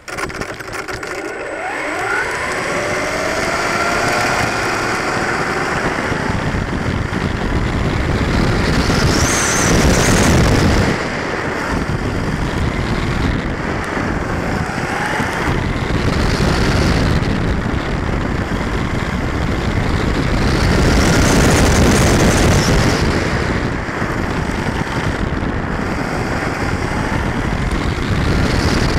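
HobbyKing Trooper 1/10 short-course RC truck heard from an onboard camera while lapping on tarmac. Its motor whine rises in pitch as it accelerates in the first few seconds, over continuous rushing tyre and wind noise that grows louder twice, around ten and twenty-two seconds in.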